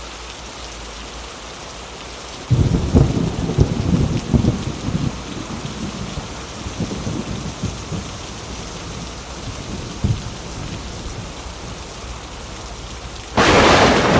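Steady heavy rain. Thunder starts rumbling about two and a half seconds in and fades over several seconds, then a sudden loud thunderclap cracks near the end.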